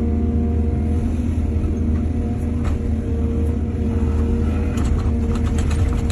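Excavator's diesel engine running steadily with a deep hum, joined near the end by a quick run of clanks and rattles.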